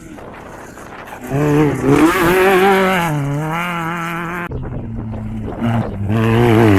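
Off-road race vehicle's engine revving hard through a turn, the engine note wavering up and down rapidly. The revs ease to a steadier, lower note partway through, then climb again near the end.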